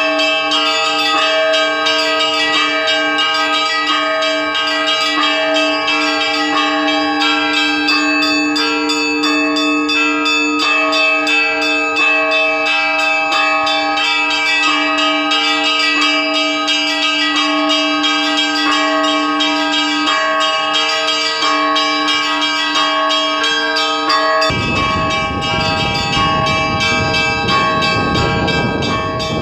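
Orthodox cathedral bells rung together in a continuous peal, several bells of different pitches struck over and over so that their tones ring on steadily. A low rumble joins the bells near the end.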